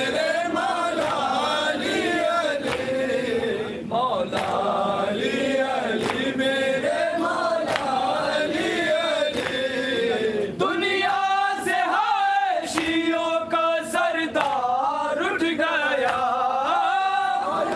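Men's voices chanting a nauha, a Shia mourning lament, in a slow melodic line, with a few long held notes around the middle.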